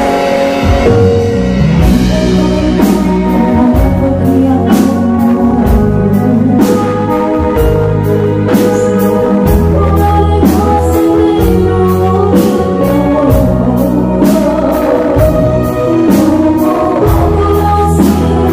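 A live band playing a song, a singer's voice over a steady drum beat of about two hits a second.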